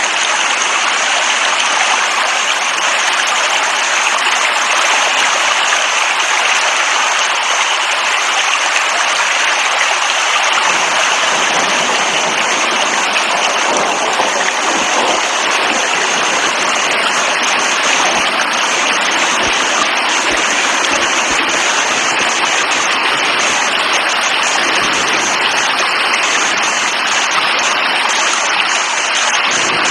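Steady heavy rain: a dense, even hiss of falling water with no breaks.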